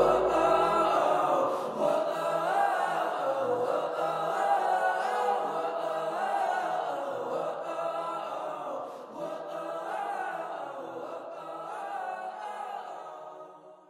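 Background music with voices singing, losing its bass about a second in and fading out gradually, ending right at the close.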